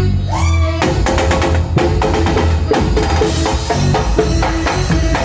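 A live band playing during a soundcheck, led by a drum kit with steady, regular hits over a heavy bass line and sustained instrument notes.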